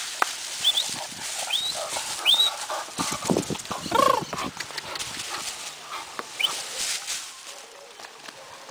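Black Labrador puppy moving through dry grass and dirt, with rustling and scuffing throughout. There are a few short, high rising chirps, and a brief whine about three to four seconds in.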